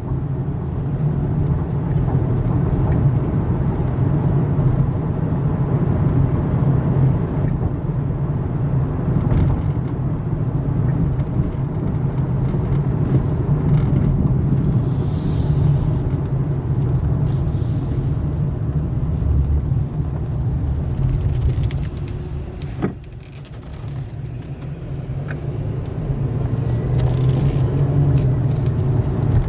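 Steady engine and road noise of a car being driven. About three quarters of the way through it drops off for a couple of seconds, starting with a single sharp click, then builds back up.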